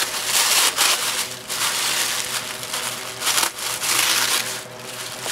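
Tissue paper being unwrapped by hand, crinkling and rustling in irregular bursts.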